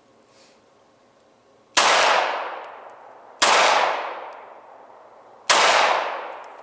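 Three gunshots firing tracer rounds, spaced about two seconds apart. Each shot is followed by a long echo that fades away.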